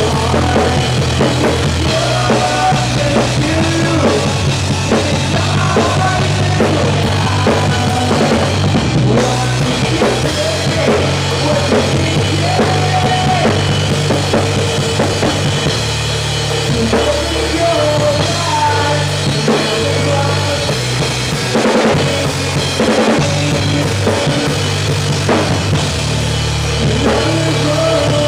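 Drum kit played hard and close up in a live rock band: kick drum, snare and cymbals over sustained bass guitar notes and the rest of the band.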